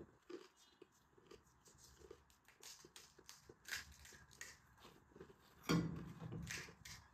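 Quiet close-up eating sounds: small crunches, crackles and clicks as the last of a pani puri is chewed and the next crisp puri shell is handled and cracked open with the fingers, with one louder crackle a little before the end.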